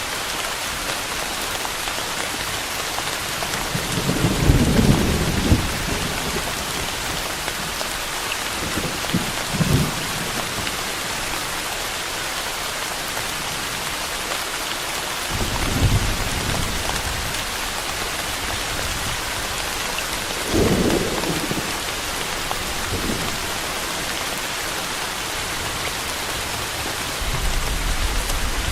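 Steady rain with several low rolls of thunder swelling and fading through it, the strongest about four seconds in.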